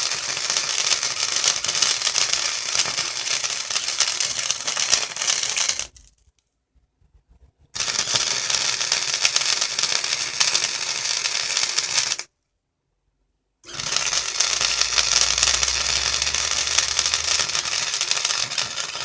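Wire-feed welder laying beads: a steady crackling sizzle of the arc in three runs, stopping about six seconds in, again about twelve seconds in, then starting once more. The voltage has just been turned up for the thick metal, which should now give proper penetration.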